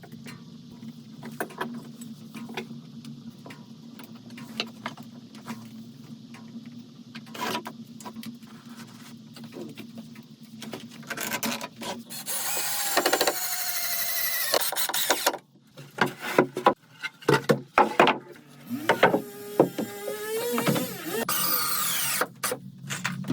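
Woodworking with a power tool: a drill-like motor whining, its pitch gliding up and down in several runs through the second half, amid knocks and clatter of wood.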